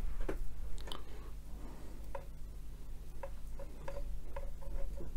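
Stiff paintbrush dabbing texture paste onto a miniature figure: light, irregular ticks and taps, coming more often in the second half, over a low steady hum.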